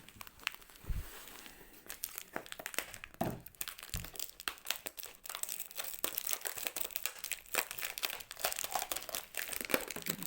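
Plastic mailer packaging and packing tape crinkling and crackling as a package is worked open, a dense run of irregular crackles that thickens from about halfway through.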